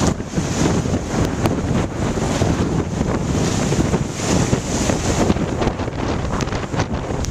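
Strong storm wind gusting and buffeting the microphone, with waves churning on the lake.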